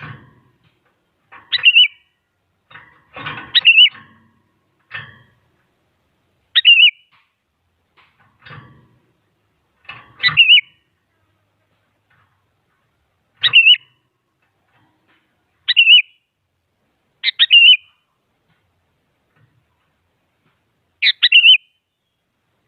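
Sooty-headed bulbul (kutilang) giving short, loud chattering call phrases, about eight of them spaced a few seconds apart, with a few fainter rough sounds between the early calls.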